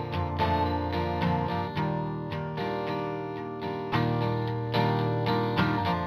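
Intro music led by picked guitar: a steady run of plucked notes over held low bass notes that change every second or two.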